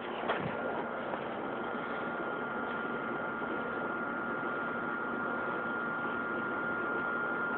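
Steady background hiss and hum with a thin, unchanging high whine, and a single faint click just after the start.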